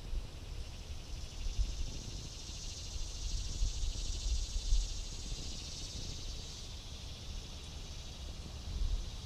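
Wind buffeting the microphone in uneven gusts, under a steady high, fast-pulsing insect chorus that swells a few seconds in and eases off toward the end.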